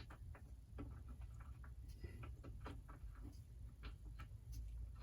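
Faint, irregular light clicks and taps of small metal parts being handled during spark-plug work on a backpack blower.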